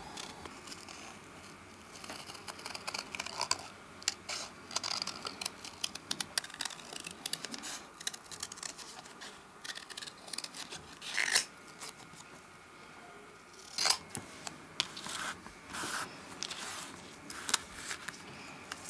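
Scissors snipping through a photograph: a long run of short cuts with paper being handled, and two louder snips a little past the middle.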